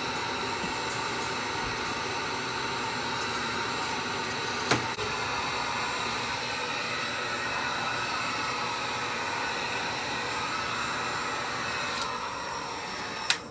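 Hand-held hot-air blower running steadily at full speed, melting the ice off an RV refrigerator's cooling fins during a defrost. A single knock comes about five seconds in, and the blower stops at the very end.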